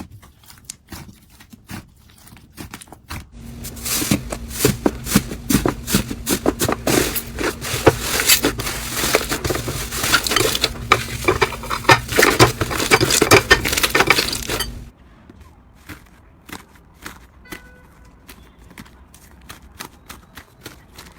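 Slime being handled, making a run of crackling clicks and pops. They come thick and loud from about three seconds in until about fifteen seconds, with a low steady hum under them, then thin out to sparse, quieter clicks.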